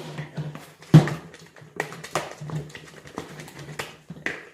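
Knocks and clicks of bottles and bowls being handled on a table while slime is made, a sharp one about a second in and several smaller ones after, over a low steady hum.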